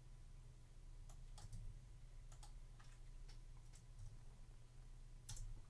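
Faint, irregular clicks from a computer mouse and keyboard, about ten scattered across a few seconds, some in quick pairs, over a low steady hum.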